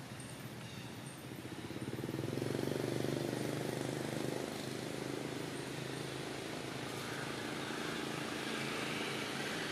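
A motor vehicle's engine rumbling steadily in the background, getting louder about two seconds in.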